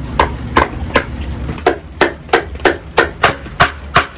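A hammer driving a nail into a piece of wood. It strikes about a dozen times in quick, steady succession, a little faster after a short pause near the middle.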